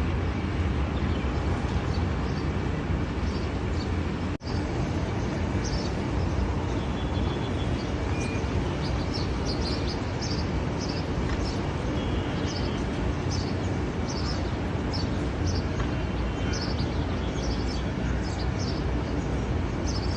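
Small birds chirping again and again over a steady low rumbling background noise. The sound drops out for an instant about four seconds in.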